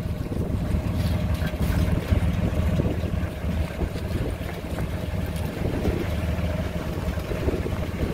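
1967 GMC grain truck's engine idling steadily.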